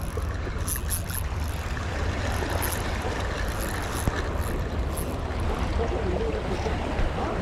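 Wind buffeting the microphone over sea water washing against rocks, with scattered faint high ticks as a spinning reel is cranked to bring in a hooked fish.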